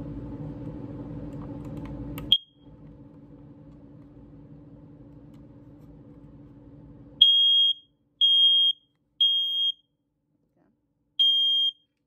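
First Alert smoke and carbon monoxide alarm in self-test: a short chirp, then about five seconds later loud, high-pitched beeps, three in a row, a pause, and the next group beginning. This is the three-beep pattern a smoke alarm sounds for smoke.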